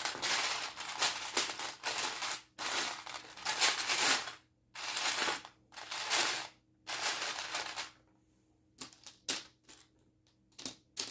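Loose plastic Lego pieces being rummaged and stirred by hand in a box, a dense clattering rattle in several long stretches, then a few separate sharp clicks near the end as single pieces are handled.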